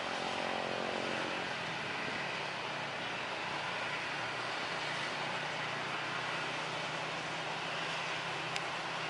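Twin jet engines of a Boeing 737 running at take-off power as it rolls down the runway: a steady rushing noise with a low hum underneath. A faint click comes near the end.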